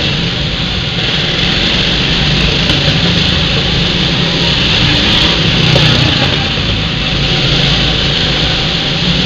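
Several go-karts' small engines running as the karts lap the track and pass close by: a steady, dense engine drone that swells slightly about six seconds in.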